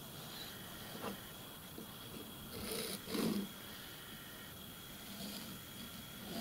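Quiet handling sounds of a caliper being set against a cast iron cylinder block: a light click about a second in and a couple of brief scuffs near the middle, over a faint steady high tone.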